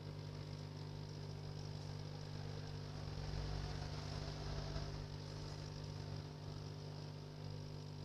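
Hot air rework station blowing onto a phone circuit board: a steady hum with the hiss of the airflow, a little louder around the middle. It is heating the solder under the display connector to lift it off.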